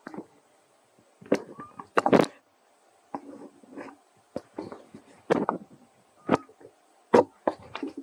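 Irregular scuffs, knocks and rustles, a handful of sharp ones a second or so apart with quieter scraping between them.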